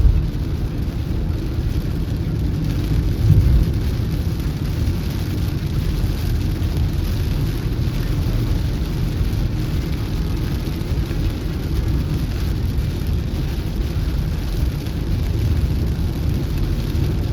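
Steady low rumble of a car driving on the road, heard from inside the cabin, with a brief louder thump about three seconds in.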